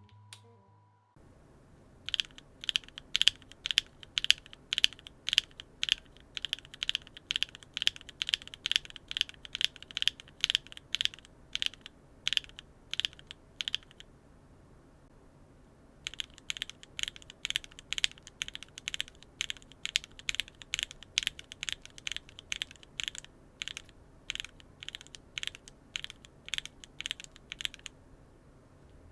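Gateron linear mechanical keyboard switches pressed and released rapidly, several clacks a second. There are two runs of about twelve seconds each, with a short silent pause between them.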